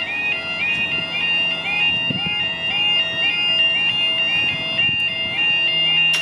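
UK level crossing yodel alarm sounding as the lifting barriers lower: a warbling electronic tone pattern repeating about three times a second over a steady high tone, with a low hum underneath from about two seconds in.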